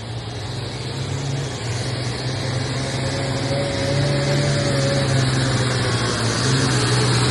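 Diesel engine of a modified farm pulling tractor running at high RPM under full load as it drags a weight-transfer sled. It is a steady drone that grows slowly louder, with a faint whistle rising and falling over it a few seconds in.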